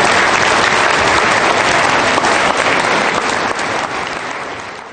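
Audience applauding, dense and steady, tapering off near the end.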